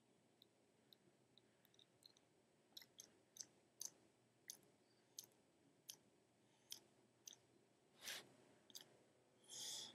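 Savannah monitor eating a boiled egg: faint, irregular clicks of its jaws and mouth as it chews, coming more often from about three seconds in, with two short louder bursts near the end.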